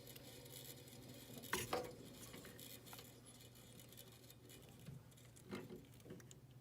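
Quiet pause: a faint steady low hum, with a light clink about a second and a half in and a softer knock or two near the end.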